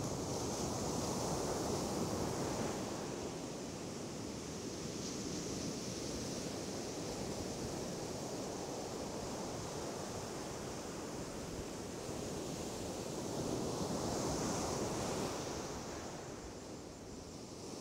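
Ocean surf breaking and washing up the sand: a steady rush that swells near the start and again about three-quarters of the way through.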